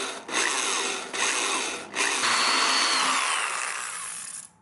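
Power drill with a 1/4-inch bit boring through the car's sheet-metal fender, in short runs and then a longer one about two seconds in, with a high whine that drops in pitch, stopping suddenly near the end as the hole is finished.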